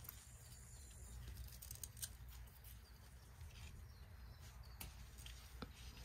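Near silence: a hand handling tomato plants, with a few faint soft clicks over a low steady rumble.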